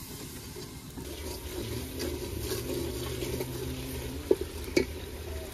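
Water running and splashing, with two sharp knocks about half a second apart near the end.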